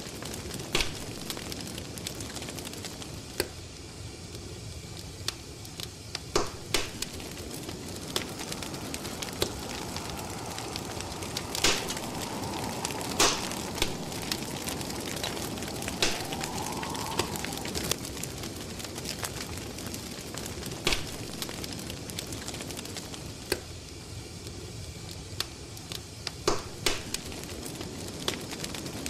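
Fire crackling: a steady hiss broken by irregular sharp pops and snaps, several close together about 26 seconds in. A faint steady tone sits under it from about 9 to 17 seconds in and rises briefly as it ends.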